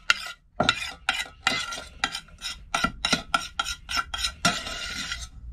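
Metal spoon scraping mashed potato out of a stainless steel saucepan: a quick run of repeated scrapes and clinks against the pan, about three or four a second.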